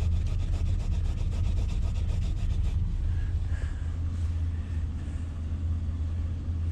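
Quick back-and-forth rubbing, about eight strokes a second, as a computer chip is wiped clean by hand to read its markings; the rubbing stops about three seconds in. A steady low engine hum runs underneath.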